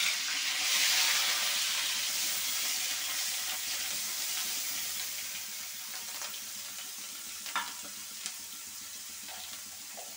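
Onion paste sizzling as it hits hot oil in a wok. The hiss is strongest about a second in and slowly dies down. A metal spatula stirs it, with a few sharp clicks against the wok past the middle.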